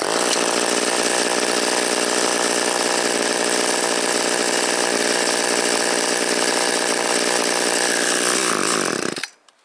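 Two-stroke gas chainsaw catching on a pull of the starter cord and running at a steady high speed for about nine seconds, then dropping in pitch and cutting out: a saw that stalls and struggles in the cold.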